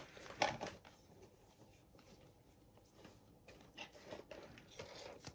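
Faint handling of hockey trading cards and their pack wrapper: a short rustle about half a second in, a quiet stretch, then a few soft rustles and taps near the end.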